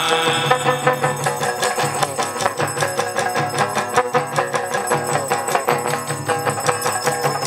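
Hát văn (chầu văn) ritual music in an instrumental passage between sung verses: plucked strings over fast, even clicking of wooden clappers and the high ringing of a small cymbal or bell.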